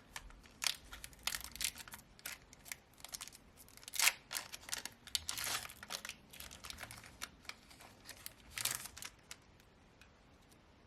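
Pokémon TCG booster pack wrapper being torn open and crinkled: a run of short crackling rustles and tears, the loudest about four and nine seconds in.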